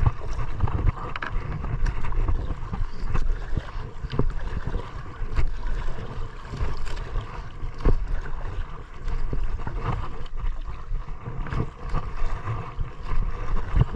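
Wind buffeting the microphone over water sloshing against the hull of a small outrigger boat, with scattered knocks.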